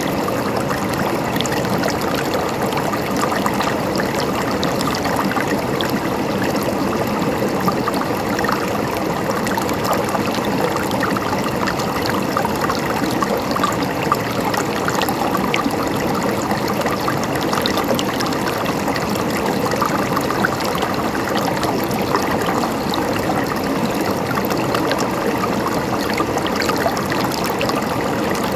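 Mountain stream gurgling and splashing steadily over rocks.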